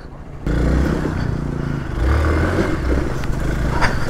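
Motorcycle engine running at low revs, starting abruptly about half a second in and holding steady with small swells.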